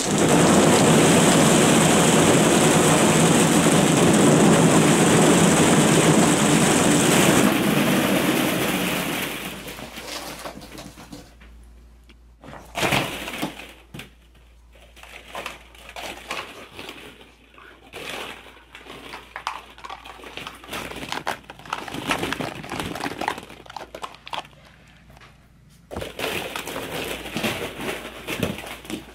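A big load of hollow plastic ball-pit balls pouring out of a cardboard box in a loud, continuous clatter for about nine seconds. After that come scattered clicks and rattles as a beagle walks and plays among the balls, with a busier stretch of rattling near the end.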